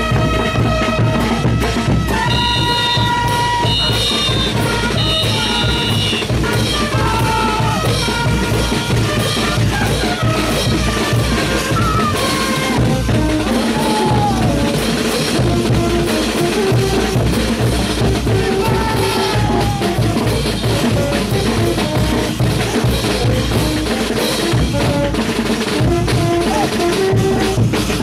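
Caporales dance music: a band's held melody notes over a steady drum beat, the melody clearest in the first few seconds.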